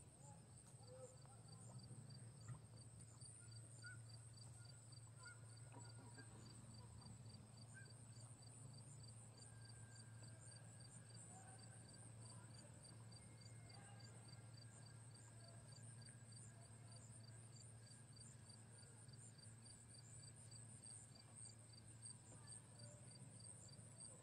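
Near silence: faint outdoor ambience of crickets chirping in a fast, even pulse over a low steady hum, with a few faint distant calls in the first several seconds.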